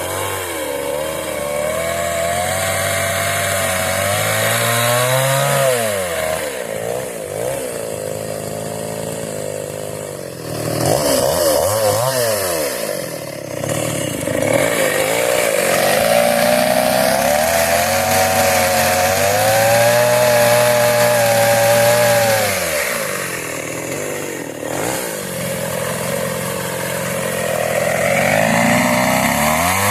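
Kawashima two-stroke chainsaw running while cutting wood, its engine pitch repeatedly dipping and climbing back up.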